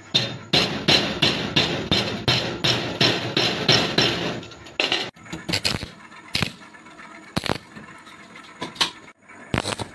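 Hand hammer striking a metal rod clamped in a bench vise: a quick, even run of blows at about three to four a second for nearly five seconds, then a few separate knocks about a second apart.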